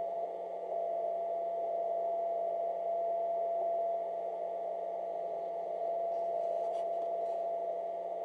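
Shortwave receiver audio: steady band hiss with a single steady tone running through it, the birdie interference that the phase-shifting noise canceller is being adjusted to null. The level shifts slightly now and then.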